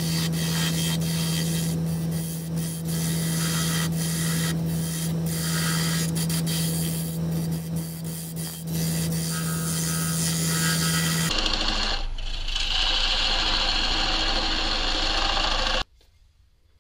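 Wood lathe running with a steady motor hum while a hand-held turning tool scrapes and cuts into a spinning figured-maple blank. The sound changes about eleven seconds in and cuts off abruptly near the end.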